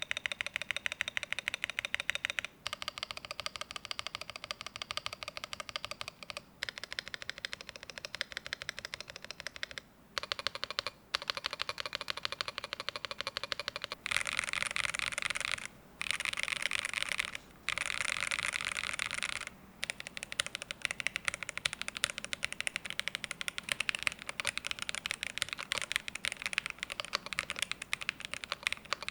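Fast, continuous typing on a Cyberboard R2 custom mechanical keyboard with factory-lubed linear switches, an aluminium plate and transparent keycaps. The keys click rapidly with a few short pauses. The typing gets louder and denser about halfway through for several seconds.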